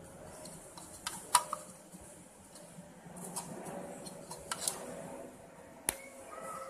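Hard plastic charger cases clicking and knocking against each other as they are handled and lined up: a few sharp, scattered clicks, the loudest near the end, over a faint steady hum.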